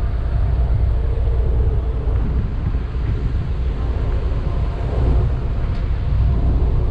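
Steady low rumble of a car ferry's engines while underway.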